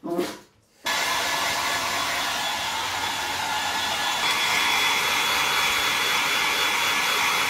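Handheld hair dryer blowing steadily on a wet dog's fur, with a thin, steady high whine over the rush of air. It starts abruptly about a second in.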